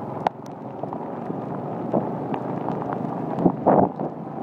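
Motorbike riding on a rain-wet road: the engine runs steadily under the hiss of tyres on water and wind on the microphone, with scattered sharp ticks of raindrops. A louder rush comes near the end.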